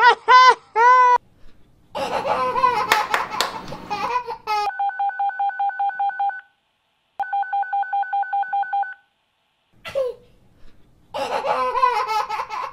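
Electronic toy beeping: two bursts of rapid two-tone beeps, about eight pulses a second and just under two seconds each, after a noisy crackling burst.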